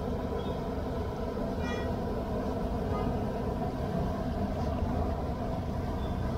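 Steady background rumble of street noise, with a brief faint higher tone about a second and a half in.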